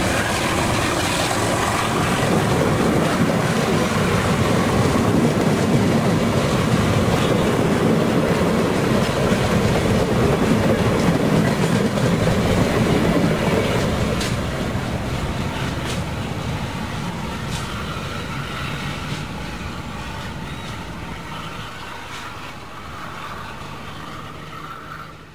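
Passenger train passing close by, its wheels loud on the rails, then the sound fades away steadily over the last ten seconds or so as the train moves off.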